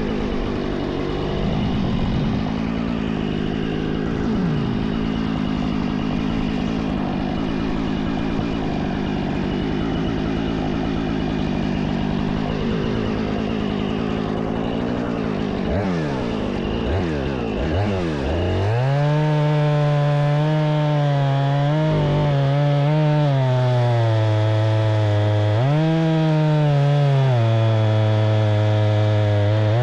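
Jonsered two-stroke chainsaw running rough at low speed, blipped up and down a few times about 16 seconds in, then held at full throttle from about 18 seconds, its pitch dipping now and then as the chain bites into cherry wood.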